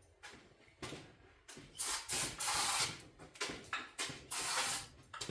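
Aerosol brake cleaner sprayed in several short bursts onto the tractor's oil breather, starting about two seconds in, after a couple of light knocks.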